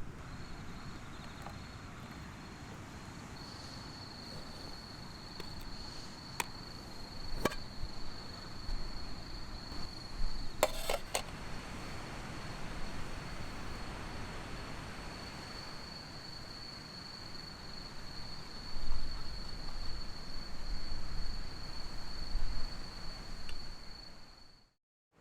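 An insect's steady, unbroken high trill over a low rumble of wind on the microphone, with a few sharp clicks around the middle. Everything cuts off suddenly near the end.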